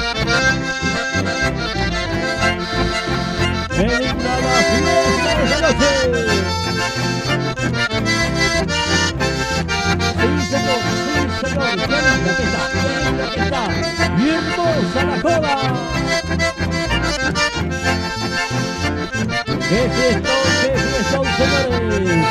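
Live instrumental chamamé: piano accordion and bandoneon playing the melody over strummed guitars, with a steady dance rhythm.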